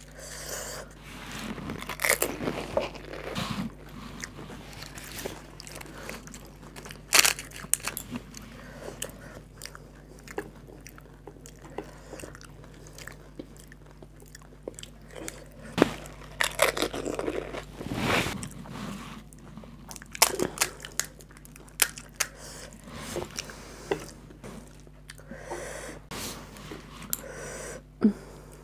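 Fuchka (pani puri) being bitten and chewed: the crisp fried shells crunch at irregular moments between stretches of wet chewing.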